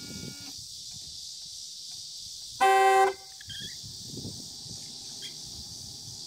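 Saab 9-5 car horn sounding one short honk, about half a second long, a little before the middle.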